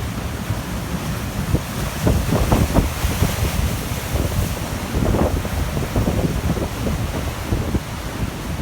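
Rough storm surf breaking and washing up the shore, its hiss swelling around the middle, with gusts of wind buffeting the microphone.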